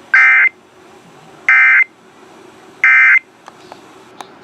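Emergency Alert System end-of-message data bursts: three short, buzzy two-tone digital squawks about a second apart, closing the test broadcast.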